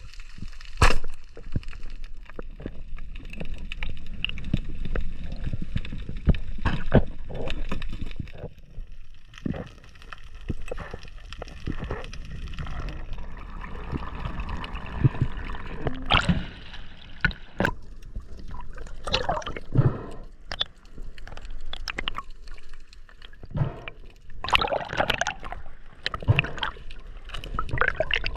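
Water sloshing and gurgling close to the microphone, with many uneven clicks and knocks.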